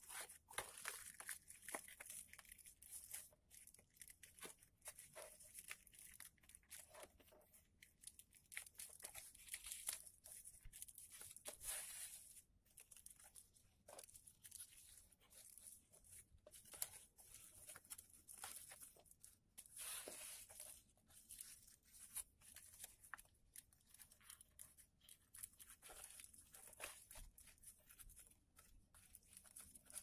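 Origami paper rustling and crinkling as hands fold and press down its creases: a faint, continuous run of small crackles and taps.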